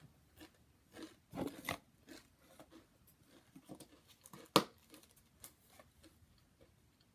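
A person chewing and crunching Wavy Pringles chips with their mouth, in irregular crunches, with one sharp snap about four and a half seconds in.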